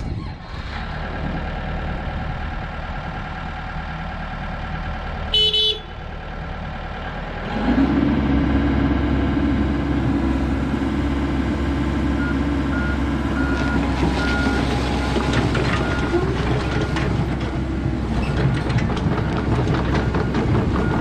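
Komatsu PC78US excavator's diesel engine running, with a short horn toot about five seconds in. About eight seconds in the engine rises to a louder, higher note under load. From about twelve seconds a travel alarm beeps repeatedly over the engine.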